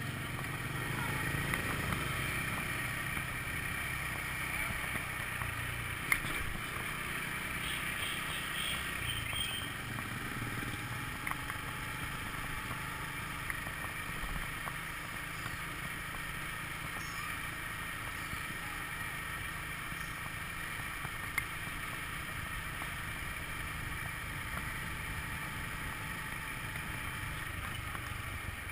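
Honda scooter engine running steadily as it rides along, under wind rush on the camera microphone and street traffic noise. Two brief sharp knocks, one about six seconds in and another later on.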